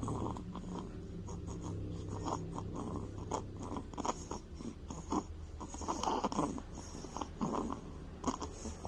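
Eleven-day-old newborn's noisy sleep breathing: irregular snuffles and snores with small clicking, smacking mouth noises.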